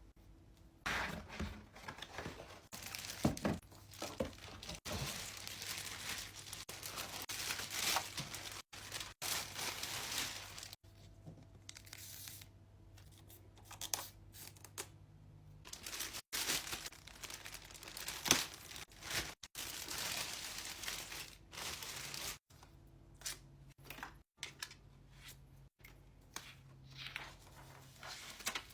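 Robot-vacuum packaging being unwrapped by hand: wrapping and box material tearing and crinkling in irregular bursts.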